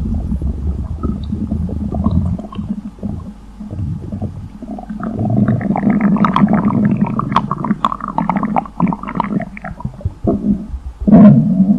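Stomach rumbling and gurgling: a continuous low churning growl that turns into a busy run of crackly, bubbling gurgles in the middle, with a loud sudden gurgle near the end.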